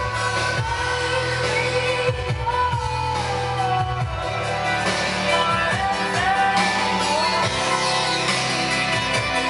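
A song with a singing voice over a bass line and a steady beat, played through a Logitech Z-5500 computer speaker set and its subwoofer.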